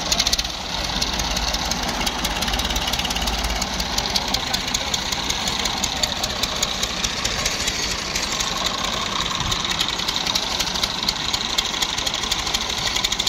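Massey Ferguson tractor diesel engines running close by with a steady, rapid clatter.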